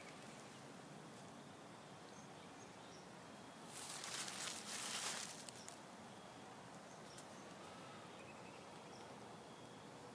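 Faint outdoor background with a few scattered high chirps. About four seconds in comes a second or so of rustling, like footsteps through dry fallen leaves.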